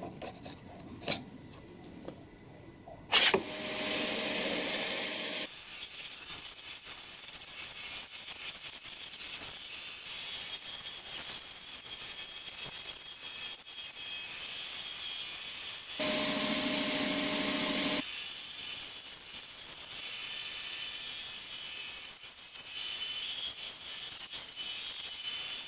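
A pencil scratches along a ruler for the first few seconds. Then a benchtop bandsaw runs and cuts a softwood block: a steady whir with a thin high whine, louder and fuller for a couple of seconds at about three seconds in and again at about sixteen seconds in.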